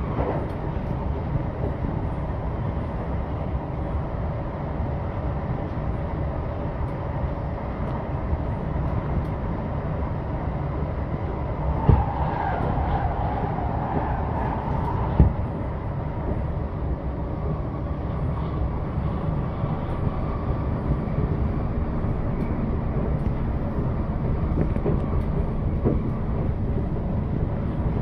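Inside a C151 metro train running at speed: a steady rumble of wheels and motors. About twelve seconds in, a train passing on the next track adds a rushing sound for about three seconds, opening and closing with a sharp thump.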